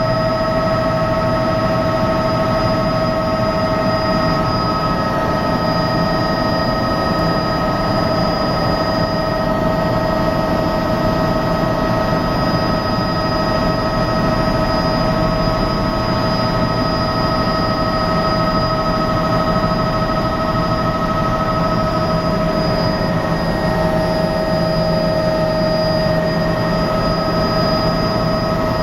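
Helicopter in steady flight, heard from inside the cabin: an unbroken drone of engine and rotor with several steady whining tones over it.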